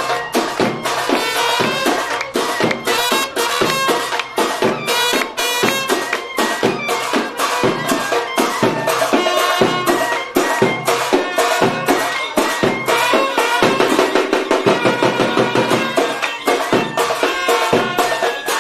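Traditional music: a reedy wind-instrument melody over a fast, steady percussion beat.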